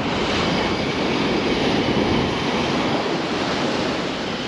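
Strong onshore wind buffeting the microphone over the rush of breaking surf: a steady, noisy rumble that swells a little in the middle.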